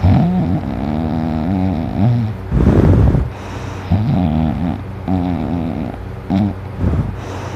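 A person snoring loudly: a string of drawn-out snores whose pitch wavers up and down, with a harsher, noisier snore a little over two seconds in.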